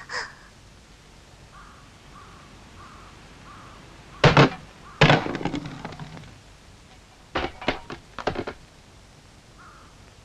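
Aluminium drink can striking and rolling on wooden boards. Two heavy thunks about four seconds in, the second trailing into a short rattle as it rolls, then a few lighter clattering knocks near eight seconds. Faint, evenly repeated bird calls sound in the background.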